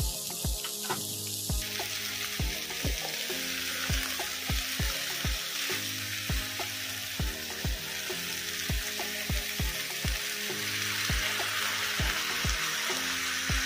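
Blue crabs and squash sizzling in a hot wok: a steady hiss that starts about two seconds in and grows louder near the end. Background music with a steady beat plays throughout.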